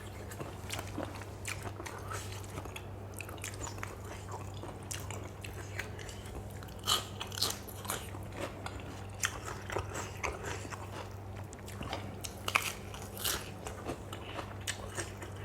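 A person chewing and crunching on a lotus-stem and fresh-shrimp salad, with irregular crisp bites and crunches, some louder about seven and twelve seconds in, over a low steady hum.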